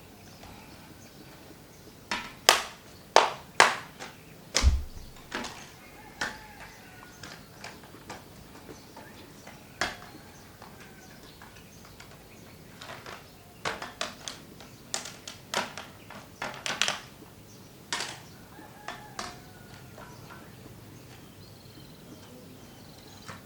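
Plastic snap clips of an Asus X201E notebook's bottom cover clicking loose as the cover is pried open with a plastic card: sharp clicks in two clusters, with a duller knock about five seconds in.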